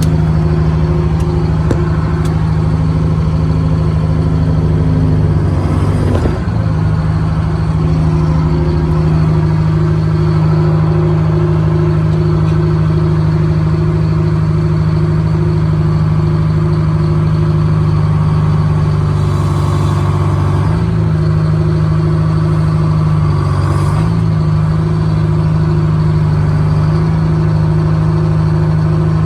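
1971 Insley excavator's diesel engine running steadily. Its note dips briefly about six seconds in and wavers again around twenty and twenty-four seconds in.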